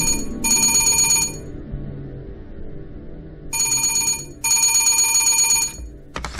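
Desk telephone ringing in double rings, twice, each ring a bright trill under a second long, over soft background music. A couple of sharp clicks near the end as the handset is picked up.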